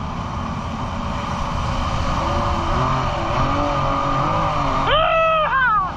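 Yamaha SuperJet stand-up jet ski's three-cylinder engine and jet pump running at speed, with a steady hiss of spray and wind. The engine pitch wavers with the throttle, and near the end a brief high whine rises and falls.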